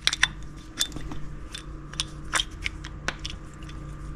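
A dozen or so light, irregular clicks and taps as a small idler pulley, its bolt and a plastic spacer are handled and fitted together in the hand, over a low steady hum.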